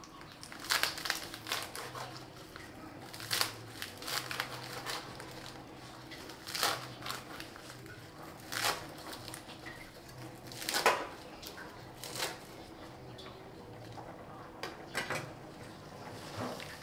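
Cleaver chopping through a bundle of leafy greens onto a wooden cutting board: irregular cuts, sometimes a few in quick succession, sometimes a couple of seconds apart, each a sharp chop with a slight crunch of leaves.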